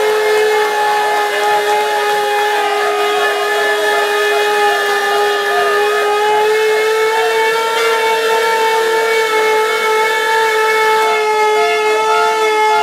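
A long, steady horn or siren tone with several overtones, held without a break, rising slightly in pitch about six seconds in.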